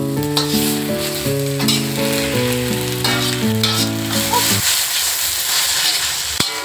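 Greens stir-frying in a hot steel wok: a steady sizzle with the spatula stirring and scraping, and a sharp knock of the spatula near the end. An instrumental melody plays over the first two-thirds and stops about four and a half seconds in.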